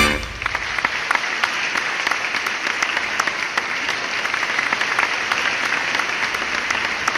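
Theatre audience applauding steadily: a dense patter of many hands clapping at once.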